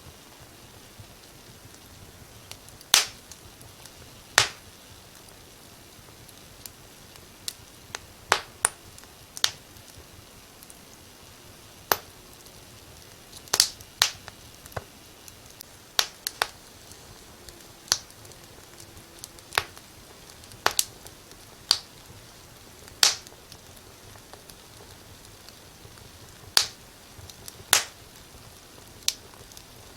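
Wood fire crackling in a fireplace: irregular sharp pops and snaps, about twenty of them, some louder than others, over a faint steady hiss.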